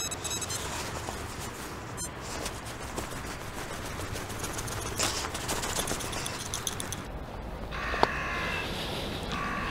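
Perforated metal sand scoop digging into and sifting dry sand: a gritty scraping rustle with small clicks. About seven seconds in, a pitched, buzzy sound with several overtones starts and comes twice, with one sharp click between.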